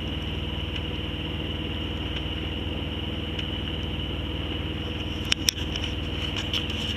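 A sailboat's engine running steadily as it motors along, a fine rapid low pulse with a steady high whine above it. Two short clicks come about five seconds in.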